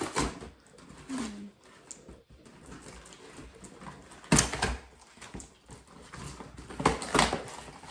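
Cardboard gift box being pulled and torn open, with sharp ripping bursts about four seconds in and again near the end. A short, falling, whine-like voiced sound comes about a second in.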